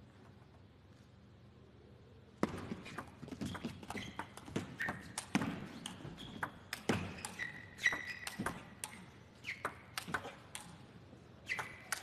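Near silence for about two seconds, then a table tennis rally: the celluloid ball clicking sharply off the paddles and the table in quick, irregular succession.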